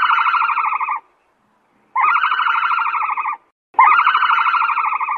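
An animal call presented as the ostrich's sound: a buzzy, rattling trill given three times, each lasting about a second and a half, with short silent gaps between.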